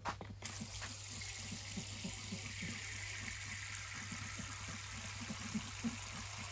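Water running or pouring in a steady stream, starting up about half a second in.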